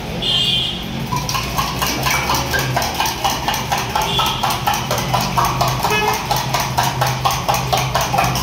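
A metal spoon beating briskly inside a steel tumbler, a quick, even run of clinks about five a second, over a steady low hum.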